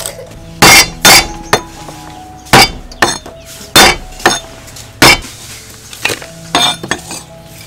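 Cleaver chopping lemongrass and ginger on a wooden chopping block: a series of loud, sharp chops at uneven intervals, some in quick pairs.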